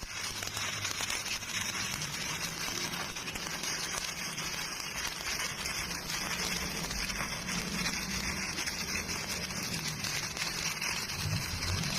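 Electric welding arc crackling and hissing in a steady, sizzling stream, starting suddenly as the arc is struck.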